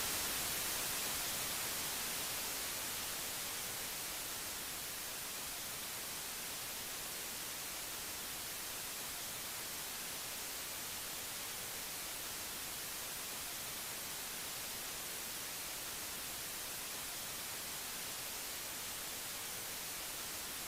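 Steady hiss of static, like white noise and strongest in the highs, easing slightly over the first few seconds and then holding level.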